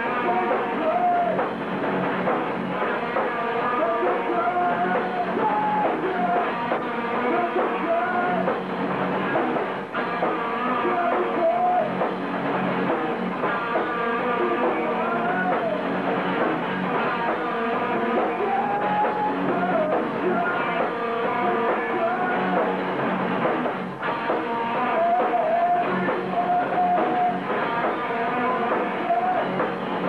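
Rock band playing live, with electric guitar, drum kit and singing, on a muffled recording with the top end cut off.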